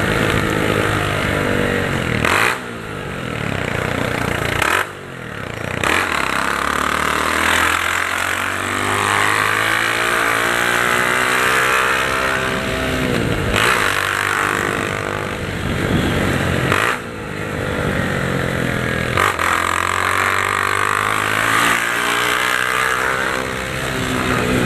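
Honda CG 150 Titan's single-cylinder four-stroke engine running through a straight-through exhaust pipe (cano direto) while riding. Its pitch climbs and falls back several times as the throttle is opened and closed, with short drops at the gear changes.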